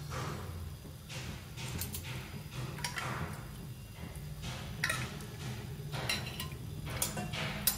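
Metal spoon clinking and scraping against cookware at irregular intervals, some strikes ringing briefly, as the boiled chicken pieces are handled. A steady low hum runs underneath.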